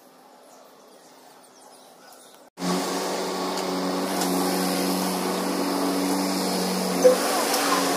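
Faint, near-quiet background at first. Then, at an abrupt cut, a steady machine hum comes in: a motor or engine running at a constant speed, with a short click near the end.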